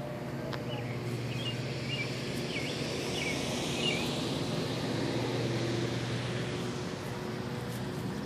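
Outdoor ambience: a steady low mechanical hum, like a distant engine or machine, with a quick run of small bird chirps between about one and four seconds in.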